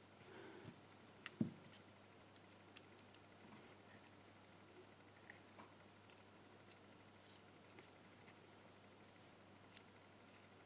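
Near silence broken by sparse, faint clicks and ticks of small metal lock parts (pin tumbler pins, springs) being handled and set into a padlock plug during reassembly.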